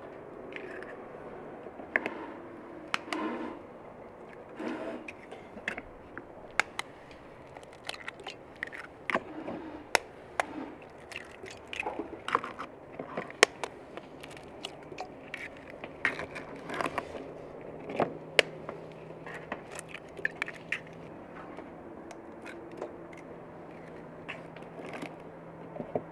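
Eggs being cracked one after another into a stainless steel mixing bowl: repeated sharp taps of shell on the rim, with shell crackle and handling clatter.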